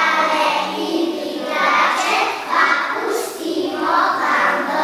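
A group of young children singing a song together in Slovenian, phrase by phrase with short breaths between lines.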